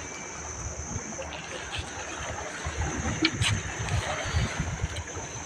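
Water lapping and slapping against the hull of a small open boat, with low buffeting that grows stronger a little past halfway and two sharp clicks close together.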